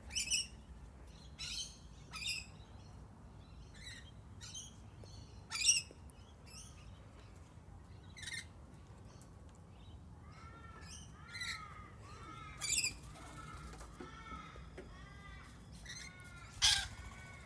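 Parrots calling, lorikeets among them: short, harsh, high screeches every second or two, joined about ten seconds in by a run of quick chirps.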